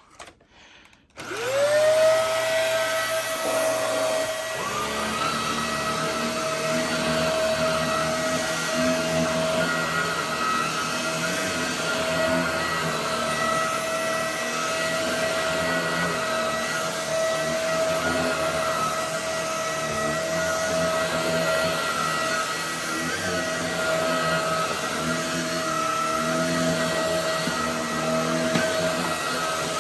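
Hoover WindTunnel Air upright vacuum cleaner switched on about a second in, its motor spinning up to a steady whine and then running steadily, with a lower rumble underneath.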